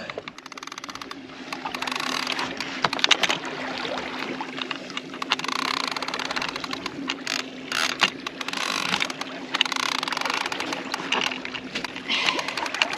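Boat motor running at a steady hum, with water sloshing and splashing over it.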